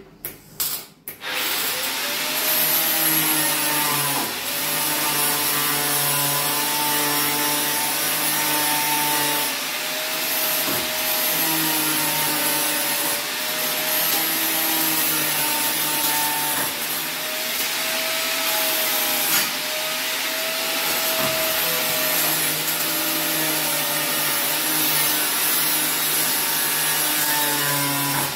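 Handheld grinder running against the steel bodywork of a car shell, with a few short clicks before it spins up about a second and a half in. Its motor pitch sags and recovers several times as it is pressed into the metal.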